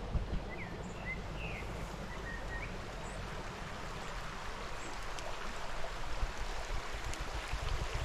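Small shallow mountain stream running over stones: a steady rush of water, with a few short high chirps in the first few seconds.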